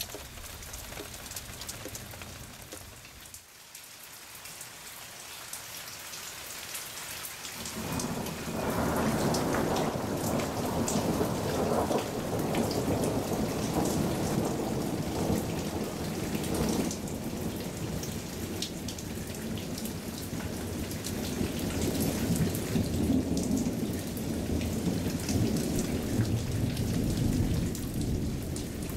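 Thunderstorm: steady rain hiss with scattered drop ticks. About eight seconds in, a long roll of thunder sets in and rumbles on through most of the rest, building again near the end.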